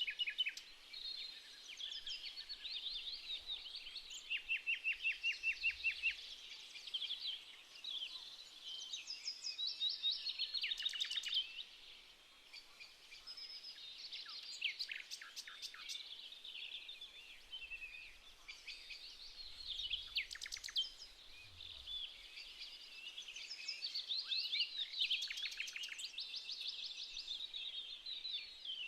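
Several songbirds singing at once, with overlapping chirps, whistled phrases and fast trills of rapidly repeated notes.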